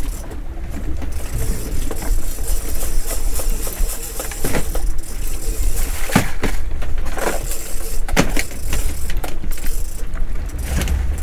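Wind buffeting the microphone and water moving around a small open boat at sea, a loud steady low rumble, with a few sharp knocks in the middle.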